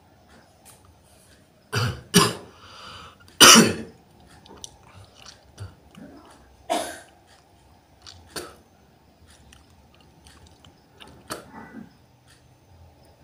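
A person coughing and clearing the throat, several loud hacking bursts close together in the first few seconds and then a few more spaced out, as phlegm is brought up after a gurah herbal remedy.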